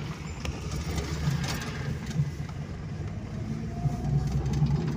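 Car engine and tyre noise heard from inside the cabin while driving, a steady low hum with a faint rising whine about three and a half seconds in.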